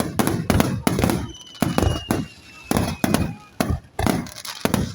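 Aerial fireworks bursting in rapid succession: a dense run of sharp bangs, each trailing off in a low rumble. A thin whistling tone falls slightly in pitch through the middle.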